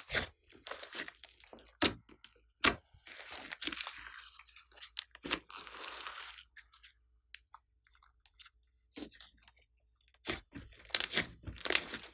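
Hands squeezing, stretching and folding a large batch of clay-mixed slime: sharp popping and crackling snaps, with a longer tearing hiss around the middle as it is pulled out into a long sheet. After a quieter spell, a quick run of pops comes near the end as it is pressed and folded again.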